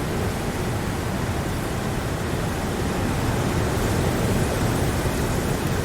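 Steady rain: a dense, even hiss of falling rain with a deep rumble underneath.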